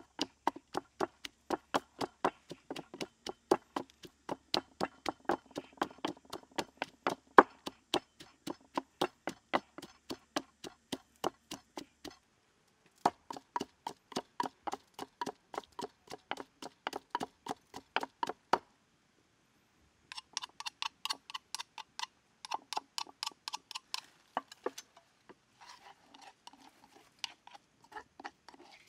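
Wooden pestle pounding red chilies and garlic into a paste in a wooden mortar: rhythmic knocks about three a second, in several runs broken by short pauses. Near the end the strokes thin out to a few irregular taps as a spoon works the paste.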